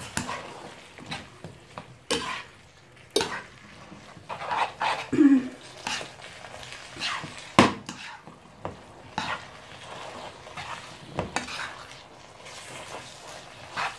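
Kitchen tongs tossing spaghetti through tomato sauce in a frying pan: irregular clicks, knocks and scrapes of the tongs against the pan, with the loudest knock about halfway, while the sauce sizzles.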